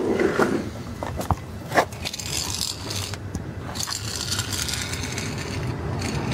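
355 cubic-inch small-block Chevy V8 idling steadily, heard from under the car near the exhaust pipe. Scraping and sharp clicks sound close to the microphone, the loudest a little under two seconds in.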